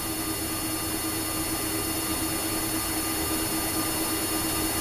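Steady cockpit hum of a Boeing 767-200 standing with its engines idling: a constant low drone with a steady tone over it, growing slightly louder.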